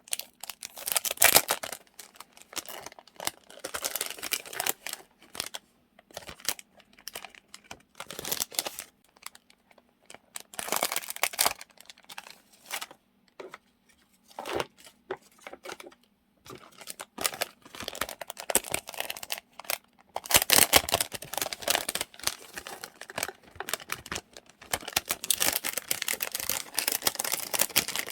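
Paper and plastic stationery packaging crinkling and rustling as sticker packs and paper goods are handled, in irregular bursts with short pauses and a few sharp taps.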